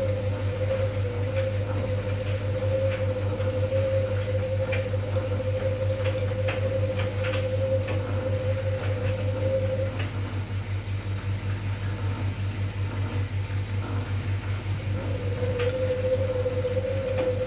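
Arçelik 2200 front-loading washing machine tumbling laundry in water during the intermediate rinse: a steady motor hum and whine, with water sloshing and splashing against the door. The motor's whine stops about ten seconds in and starts again about five seconds later as the drum pauses between turns.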